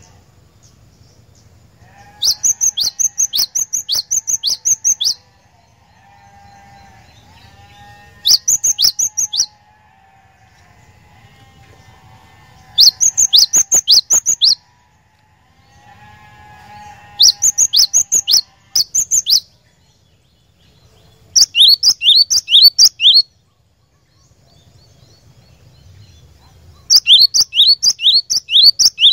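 Cinereous tit (glatik batu) singing: six loud phrases of quickly repeated high, downslurred whistled notes, each phrase one to three seconds long, with short pauses between them.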